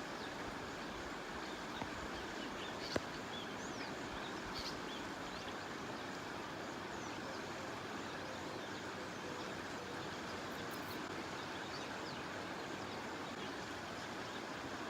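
Steady outdoor background noise with faint, scattered bird chirps and a single sharp click about three seconds in.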